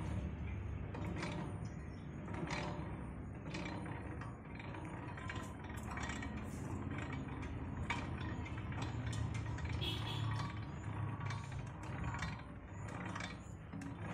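Hand-turned gearbox of a geared teapot-spout foundry ladle, clicking and ticking irregularly as the handwheel tilts the ladle body back upright.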